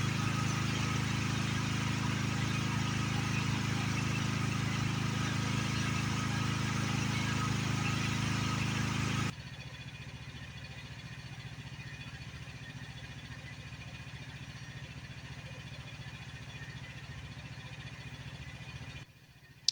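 Engine of a small demolition machine running steadily, then dropping abruptly to a lower, quieter running level about nine seconds in, before cutting out near the end.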